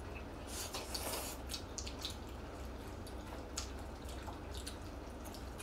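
People slurping and chewing jjamppong noodles, heard as a scatter of short, wet mouth smacks and clicks.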